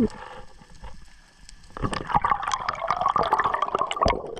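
Underwater bubbling and splashing close to the camera, just below the sea surface, starting about two seconds in and full of small clicks. A single sharp knock comes right at the start.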